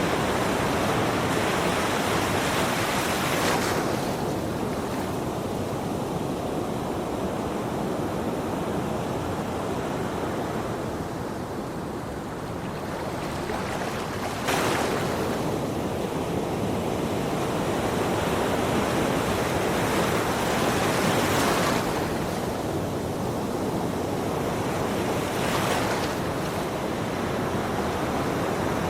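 Ocean surf breaking on a shore: a steady wash of waves that swells and ebbs, with a wave crashing suddenly about halfway through.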